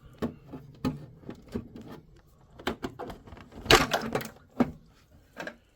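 Plastic water tank of a dehumidifier being pulled out and handled: a string of sharp plastic clicks and knocks, with a louder cluster of clunks about four seconds in.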